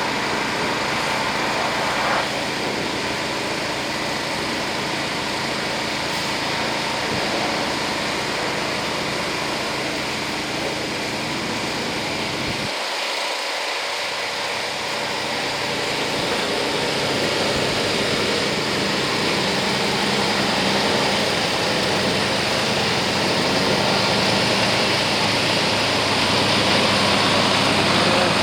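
Heavy vehicle's diesel engine running steadily, its low drone growing a little stronger and louder toward the end as the shipment gets under way.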